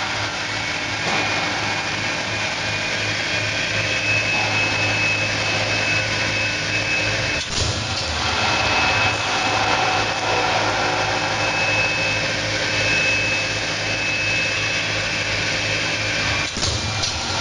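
Square tube roll forming machine running: a steady low hum with a thin high whine over continuous mechanical noise.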